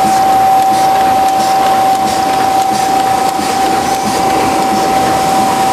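Tymi Ustar-102 UV spot coater running: a steady mechanical hum and rush with one constant whine.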